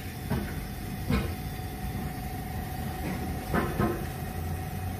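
Steady low workshop hum with a faint steady tone above it, and a few short knocks about a second in and again between three and four seconds in.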